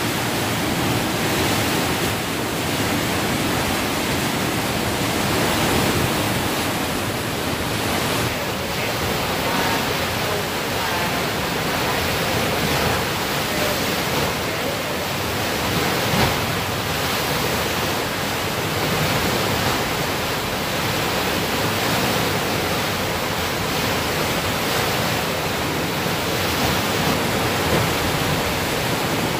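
River water rushing under a partly raised hydraulic sluice gate, churning into a turbulent surge on the downstream side; a steady, unbroken rushing.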